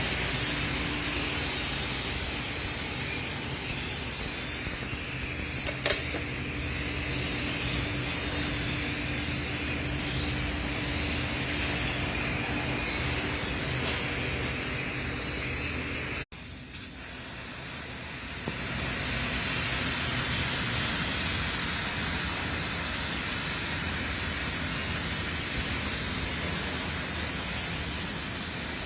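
Steady machine-shop noise: a continuous hiss from running factory machinery over a low hum. It cuts out abruptly about sixteen seconds in, then resumes, with a couple of short clicks.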